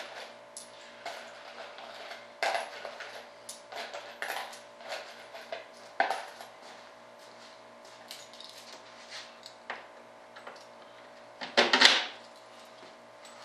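Scattered small metal clinks and clicks of bolts, nuts and washers being handled as a fiberglass wing mold is unbolted, with a louder clatter near the end.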